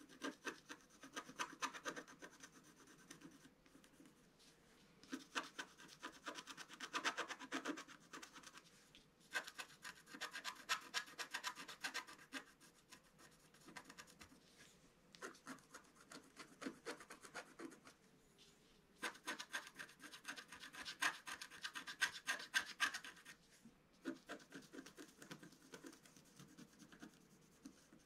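Wooden stylus scratching the black coating off a scratch-art page in quick, short strokes. The scratching comes in about six spells of a few seconds each, with short pauses between.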